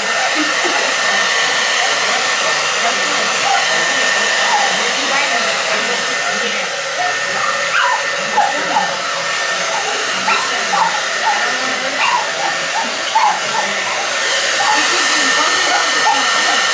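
Handheld hair dryer running steadily: a constant rush of blown air with a thin, steady whine in it.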